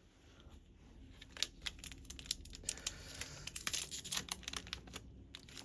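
Trading card pack wrapper being torn open and crinkled by hand: a dense run of small crackles and snaps.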